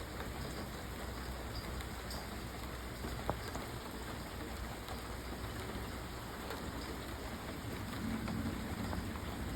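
Light, gentle rain falling steadily, an even hiss of drops, with one small tick about three seconds in.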